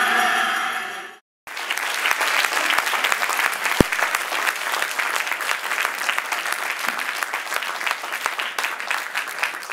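Music from a projected video fades out, and after a brief gap a hall audience applauds steadily. There is a single low knock about four seconds in.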